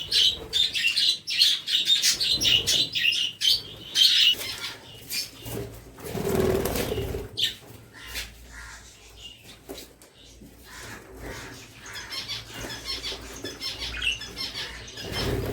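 Pet budgerigars chirping and chattering, busiest in the first four seconds and again faintly near the end, with scattered sharp clicks. A louder flurry of wing flapping comes around the middle.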